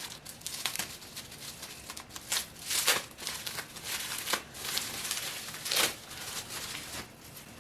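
Packaging being opened by hand: irregular crinkling and tearing rustles, several louder strokes among them.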